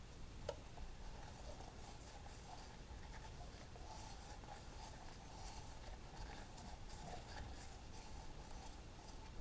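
Faint rubbing and light ticks from a gloved hand wiping ATF around the bare cylinder walls of a Farmall Cub engine block.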